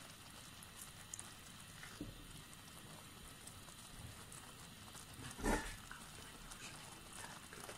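Faint bubbling of vermicelli simmering in sugared water in a steel pan, with a few light ticks and one louder knock about five and a half seconds in, from a spoon stirring in the pan.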